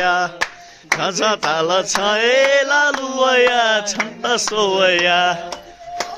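A voice singing a drawn-out, chant-like festive song with long held, wavering notes, while hand claps keep time about twice a second.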